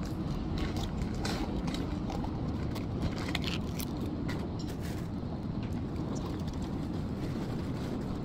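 Steady low background rumble, with light clicks and taps in the first half as a paper cup and a takeout food box are handled close to the microphone.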